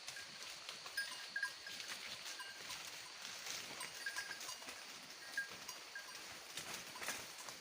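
Goats feeding, heard as scattered rustling and small clicks with short, high ringing notes now and then.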